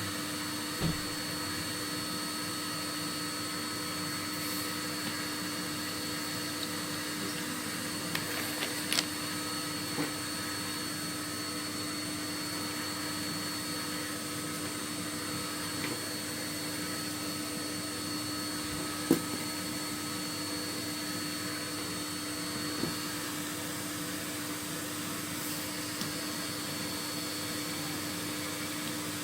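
A vacuum cleaner running steadily with an even motor hum and whine, with a few light knocks at separate moments.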